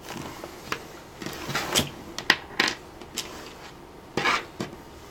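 Wire cutters snipping and clicking as thin power-adapter wires are trimmed to length, with small handling clicks of tools on a desk, a scattered series of sharp little snaps.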